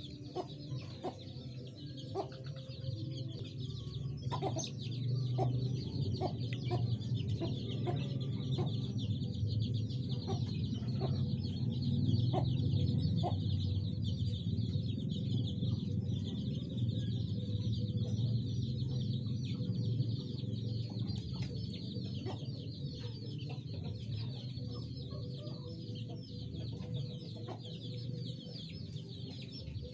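Fowl clucking in short, scattered calls over a steady low rumble and a constant high chirring.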